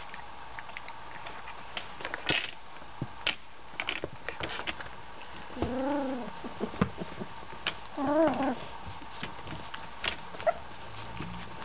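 18-day-old golden retriever puppies crying: two short whining cries about six and eight seconds in, the second wavering in pitch, among small scattered clicks and scuffles.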